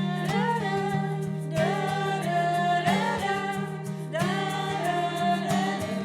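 A song: voices singing a melody over strummed acoustic guitar.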